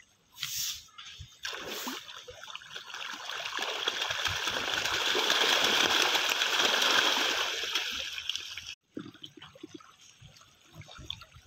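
A dense crowd of fish thrashing and splashing at the water's surface in a feeding frenzy over thrown pellets. The splashing builds up, is loudest in the middle and dies away, then breaks off sharply, leaving quieter, patchy water sounds.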